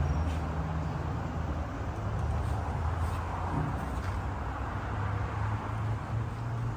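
Car engine idling with a steady low hum as the vehicle is moved forward on the alignment rack for rollback compensation.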